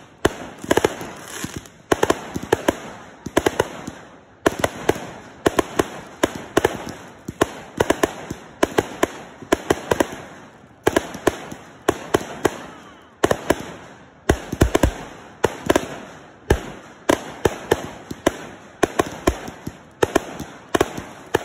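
Aerial fireworks going off in a rapid, irregular barrage of launch thumps and bursts, several bangs a second, with a deeper boom about two-thirds of the way through.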